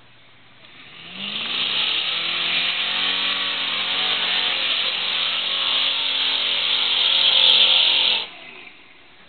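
Lifted pickup truck's engine revving hard under full throttle as it powers through a mud bog, its wheels spinning and flinging mud. The engine note climbs about a second in, holds high and loud, then stops abruptly near the end.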